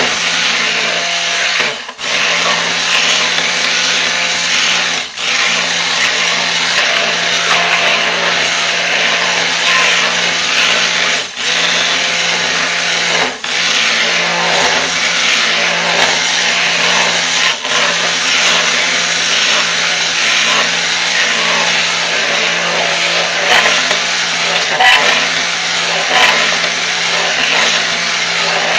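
Handheld stick blender running in a crock pot of raw soap batter, mixing lye solution into the oils until evenly blended. Its motor noise is steady and stops for a moment about five times before starting again.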